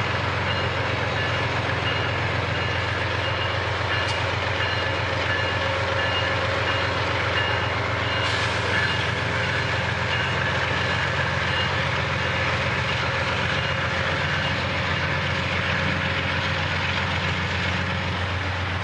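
Diesel locomotive engine running with a steady low throb as it slowly hauls a disabled passenger train. A repeating high-pitched beep sounds over it during the first half and then fades.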